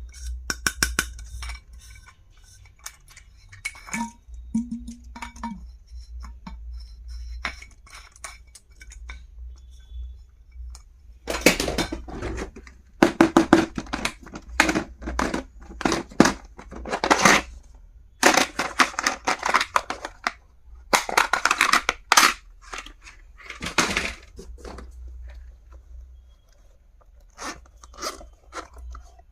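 Packaging and stationery items being handled: rustling and crinkling with clicks and knocks in irregular bursts, busiest in the middle. A brief low buzzing tone about four seconds in, over a steady low hum.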